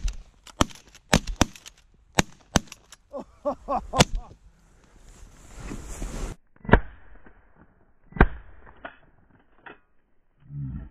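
Several shotguns fire a ragged volley into a low-flying flock of sandhill cranes: about eight shots in quick succession over the first four seconds, then two more shots spaced about a second and a half apart. Cranes call briefly among the early shots.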